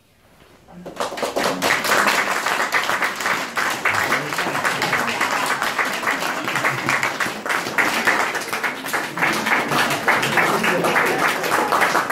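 Audience applauding, starting about a second in and continuing steadily, with some voices mixed in.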